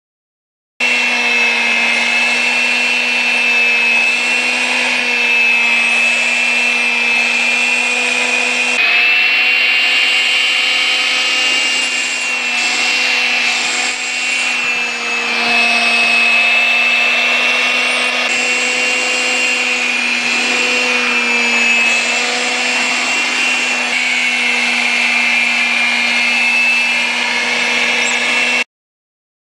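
Vacuum cleaner running with a steady motor whine and hiss, its pitch shifting slightly now and then. It starts abruptly about a second in and stops abruptly near the end.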